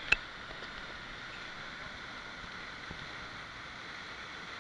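Steady rushing water, with one sharp click just after the start.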